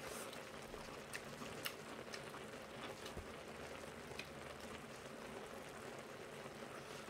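Quiet eating sounds: a few sharp clicks of metal chopsticks against the dishes and chewing, over a steady faint hiss.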